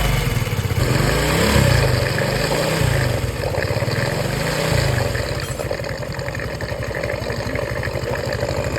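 Motorcycle engine running, blipped up and back down a few times in the first five seconds, then settling into a steady idle.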